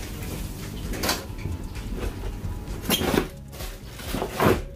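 Kitchen clatter: three separate knocks and clanks of hard objects being handled at a deep-fryer station, about a second in, at about three seconds and near the end.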